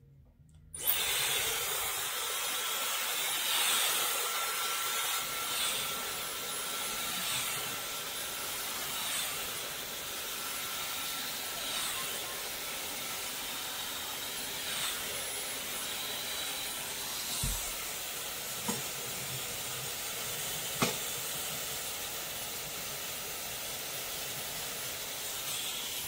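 Dyson Supersonic hair dryer with its comb attachment, switched on about a second in and blowing steadily: a loud, even hiss with a faint steady whine through the first half. It is drying the last still-wet section of the hair, with a few light clicks in the second half.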